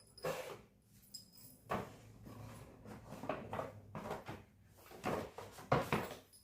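Handling noises from a new handbag and wallet being moved and fitted together: short rustles and scrapes with a few light knocks, the sharpest near the end.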